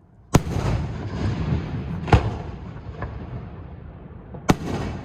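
Fireworks shells bursting: three loud booms about two seconds apart and a weaker one between, each trailing off in a long rumbling echo.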